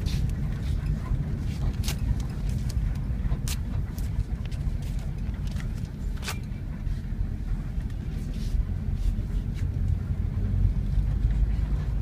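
Steady low rumble of a bus's engine and road noise heard inside the moving cabin, with a few sharp clicks and rattles scattered through it.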